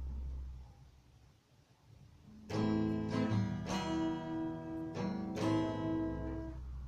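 Acoustic guitar strummed in a slow introduction, the chords starting about two and a half seconds in after a low hum that fades in the first second.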